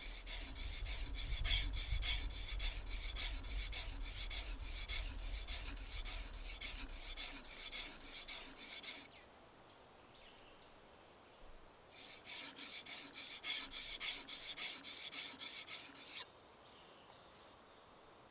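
A hand tool rasping into a wooden timber in fast, even strokes, about four a second. It works in two bouts: a long one that stops about nine seconds in, then a shorter one after a pause of about three seconds.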